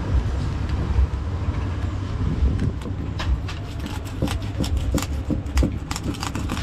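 Large knife scraping and cutting a tilapia on a wooden chopping block: a run of quick, sharp scrapes and knocks starting about three seconds in, over a steady low rumble.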